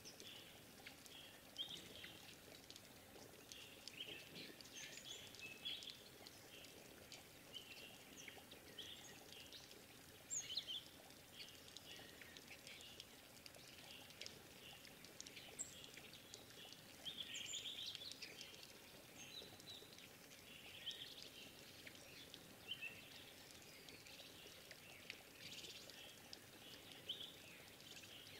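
Faint, busy forest birdsong: several birds giving short, high chirps and calls over and over, a little denser about two-thirds of the way through.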